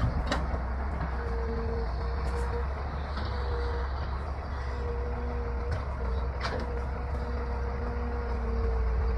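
Excavator's diesel engine running steadily, with a whine that comes and goes as it works and two sharp knocks, one just after the start and one past the middle.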